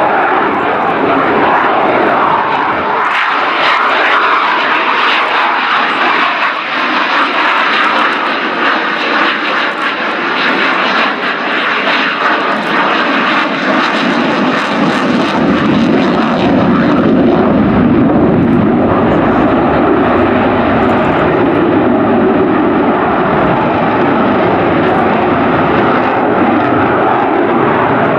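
Belgian F-16A Fighting Falcon's Pratt & Whitney F100 turbofan, loud jet noise as the fighter flies its display: a rushing hiss at first, deepening about halfway through into a heavy low rumble.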